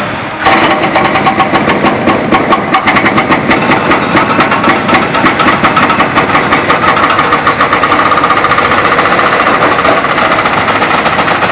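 Excavator-mounted hydraulic breaker hammering concrete with rapid, evenly spaced blows, over the steady running of the excavators' diesel engines.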